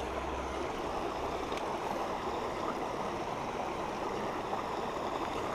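Shallow, rocky river running over riffles: a steady rush of flowing water.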